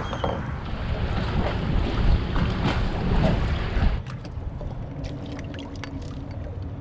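Wind buffeting the microphone over open water, easing about four seconds in, after which a few light clicks are heard.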